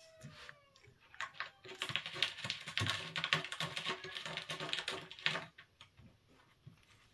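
A cat chewing and smacking on soft canned recovery food: a dense run of rapid wet clicks that starts a couple of seconds in and lasts about three and a half seconds.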